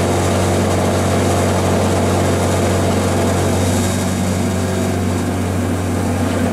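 Denford Micromill 2000 CNC milling machine running, its end mill cutting acrylic stock: a steady motor hum with the noise of the cut over it.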